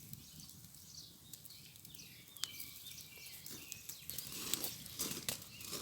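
Pork belly crackling and spattering on a hot stone grill plate, with irregular pops that grow denser in the second half. Birds chirp in the background.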